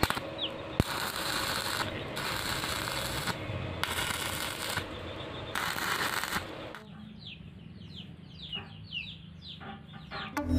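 Electric stick welding arc crackling in four bursts of about a second each, stopping and starting. Birds chirp in the background during the quieter last few seconds.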